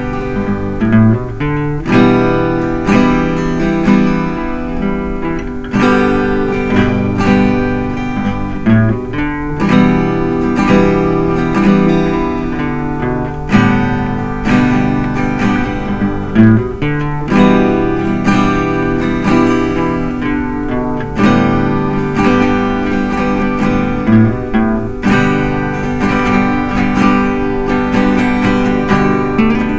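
Cutaway acoustic guitar being strummed, chords sounding with frequent strokes.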